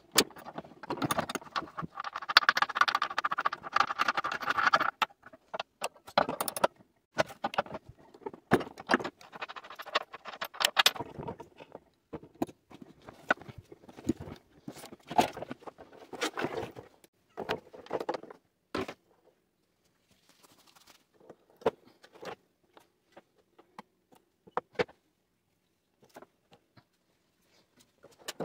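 Irregular clattering, clicking and knocking of tools and metal parts while an air conditioner is taken apart, with a rough scraping stretch over the first few seconds and sparser knocks later on.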